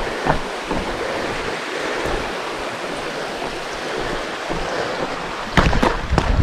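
Steady rushing of a mountain stream. Footsteps on the trail start again about five and a half seconds in.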